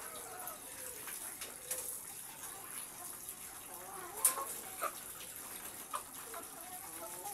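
Caged hens clucking softly over a steady high hiss. A sharp click about four seconds in and two fainter ones after it.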